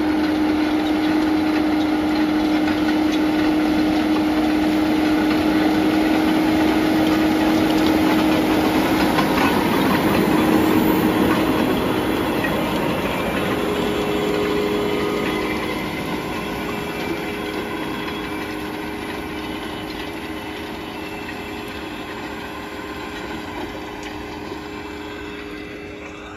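JCB Fastrac tractor running under load, pulling a Lemken combination drill through tilled soil. It comes up and passes close about ten seconds in, then steadily fades as it drives away.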